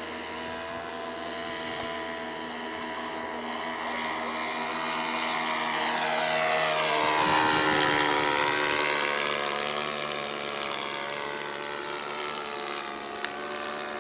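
Saito 82 four-stroke glow engine of a Seagull Decathlon RC model plane running in flight. It grows louder to a peak about eight seconds in, its pitch drops as the plane passes, and then it fades.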